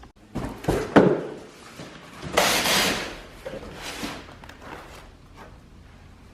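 Thumps and knocks of a shipping box being handled and opened, three sharp ones in the first second, then a loud, short rasping noise about two and a half seconds in and a few lighter knocks.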